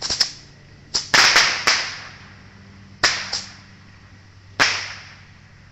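Small fireworks rockets going off in a rapid string of sharp pops. Several come close together about a second in, two more follow near three seconds, and a last one comes about four and a half seconds in, each trailing a brief hiss.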